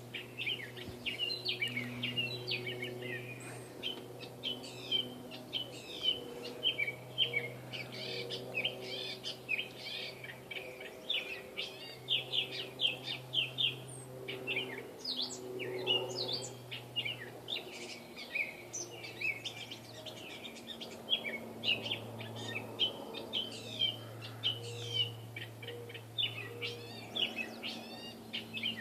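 Gray catbird singing a long, rambling song of quick, varied squeaky chirps and slurred notes with hardly a pause, over a steady low hum.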